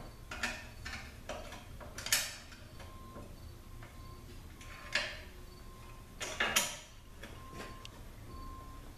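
Metal transmission parts clinking and knocking inside a Ford 4R100 automatic transmission case as its internals are worked loose by hand. The clinks are scattered and irregular, with the sharpest about two seconds in and a quick pair about six and a half seconds in.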